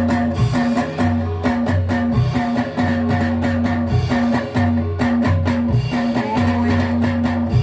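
Live music accompanying a soreng dance: repeated pitched notes and a low bass line over a steady, driving beat.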